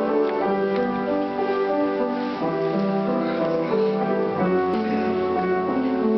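Slow instrumental piano music with held chords: the opening of a church song, before any singing.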